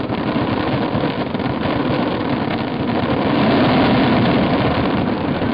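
Dense barrage of fireworks going off, many shell bursts blurring into a continuous rumble and crackle. It swells louder about three seconds in.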